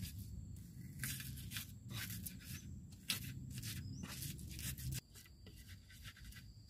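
Rustling and tearing from something being handled by hand: an irregular run of short crackles that stops suddenly about five seconds in.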